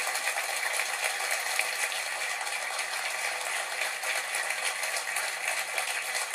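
A large audience applauding, an even patter of many hands clapping.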